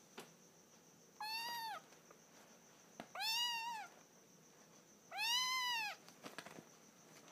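Calico kitten meowing three times, each a high call under a second long that rises and falls in pitch, about two seconds apart.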